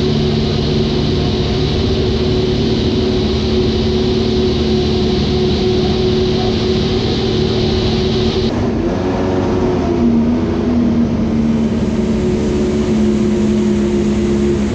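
Honda Grand Prix racing motorcycle engine running at steady, fairly high revs, with a brief dip and pick-up in revs about nine seconds in before it holds steady again.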